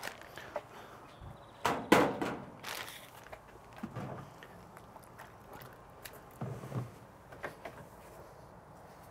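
Plastic zip-top bag rustling as a raw chicken breast is handled in it, with a sharp clatter about two seconds in, the loudest sound, and a few soft thuds later.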